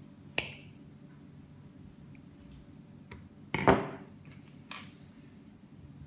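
Hand work on an Ethernet cable with clear RJ45 plugs and a crimping tool: a sharp click about half a second in, a louder short crunching snap about three and a half seconds in, and a faint click a second later.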